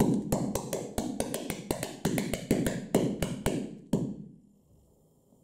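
Hydrogen peroxide decomposing violently under burning ethanol as potassium permanganate catalyses it: a rapid, irregular volley of sharp pops and cracks, several a second. It dies away about four seconds in as the flare-up burns out.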